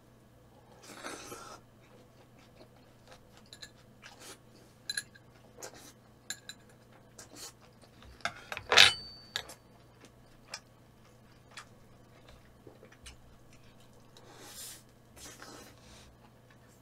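Eating sounds: utensils tapping and clinking against bowls and dishes in scattered, irregular clicks. One much louder clink about nine seconds in rings briefly.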